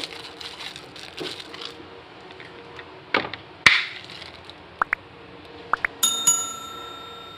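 A drinking straw punched through the sealed plastic film lid of a milk tea cup: two sharp pops, then a few short squeaks. About six seconds in, a bell ding sound effect starts and rings on steadily.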